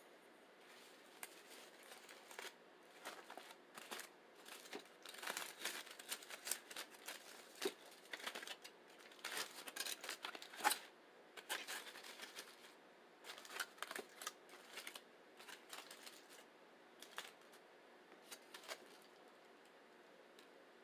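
Plastic burrito wrapper crinkling and tearing as it is opened, in irregular clusters of short crackles that stop shortly before the end.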